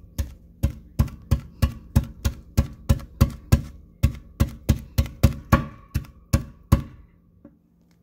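A hammer repeatedly striking a dishwasher tablet in a sink: a fast run of about twenty sharp blows, roughly three a second, that stops about seven seconds in.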